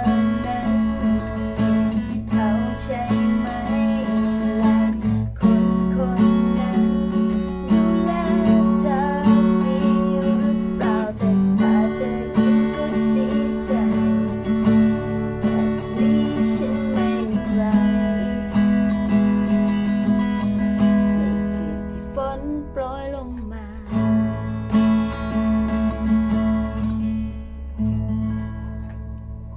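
Acoustic guitar strumming chords, changing every few seconds and trailing off softer near the end.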